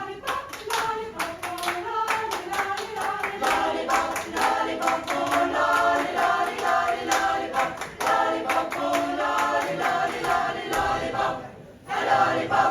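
Vocal group singing a cappella in close harmony with no words, over steady hand claps on the beat. The sound dips briefly near the end and comes back with a loud final chord.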